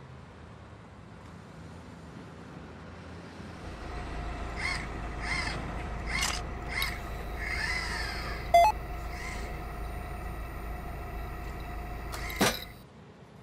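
Sound effects for an animated machine-style logo. A low electrical hum comes on about four seconds in, with a run of short squeaky calls over it and a brief sharp beep. A loud hit comes just before the hum cuts off.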